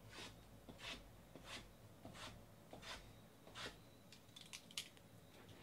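Faint scratching of fingers at the top of a trading card box: six soft strokes about every 0.7 s, then a few quick small ticks near the end.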